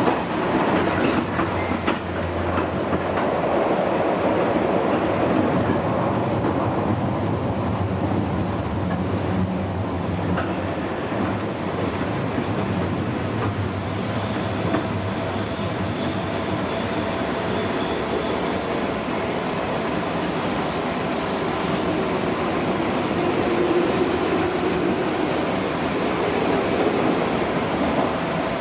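Running noise heard from inside the cabin of a JR West 201 series commuter electric train: a steady rumble of wheels on rail. Thin high tones join about halfway through.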